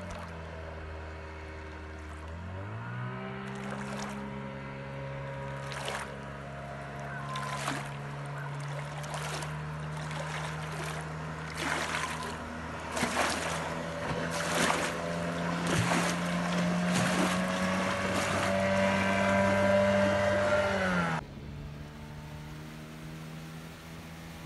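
1982 Evinrude 15 hp two-stroke outboard motor running under way. Its pitch dips and then climbs back about three seconds in, then holds with a slow rise, with sharp crackles now and then. Near the end the sound cuts abruptly to the same motor heard more quietly and steadily from on board.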